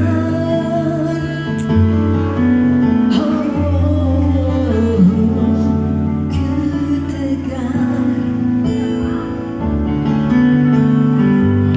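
Instrumental break of a slow pop love song: guitar-led accompaniment with held chords and a melody line that slides briefly near the middle.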